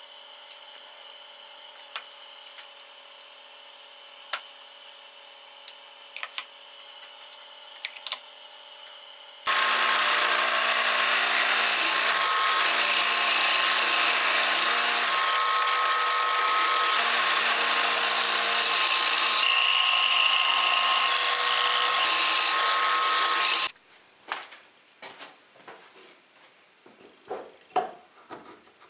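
Drill press running with a spade bit boring through a glued-up plywood block: a loud, steady cutting noise with the motor's tones, starting about a third of the way in and stopping abruptly some fourteen seconds later. Before it, faint clicks over a low hum; after it, light clicks and knocks of a wooden block being handled against a metal motor housing.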